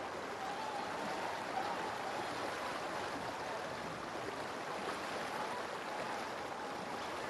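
Steady rush of flowing river water, with a faint, continuous wavering chorus of calls from a flock of swans resting on the river.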